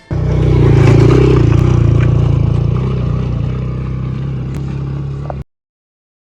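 A motor vehicle's engine running with a steady, loud low rumble. It starts abruptly and cuts off suddenly about five seconds in.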